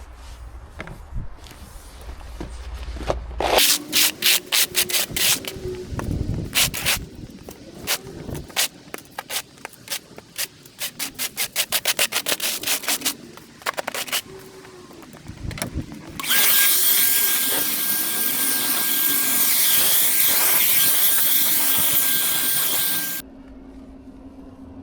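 Rapid repeated scraping strokes across the ground, the sound of moss debris being swept and scraped up, getting quicker partway through. Later a loud steady hiss runs for about seven seconds and cuts off suddenly.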